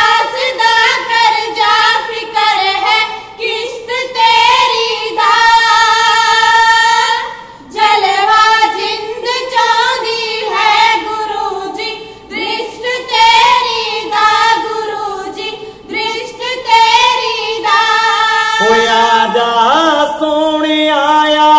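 Women's voices singing Punjabi kavishri together, unaccompanied, in long held and wavering notes. Near the end a man's lower voice takes up the song.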